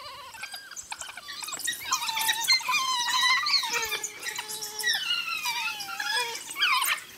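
Several African wild dogs twittering: high, squeaky chirps that glide up and down and overlap one another. It is their contact call, confirming contact with each other and with the pack.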